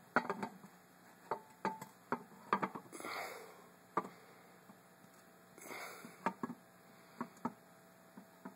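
Quiet handling sounds: scattered small clicks and taps, with two soft sniffs or breaths close to the microphone, about three and six seconds in.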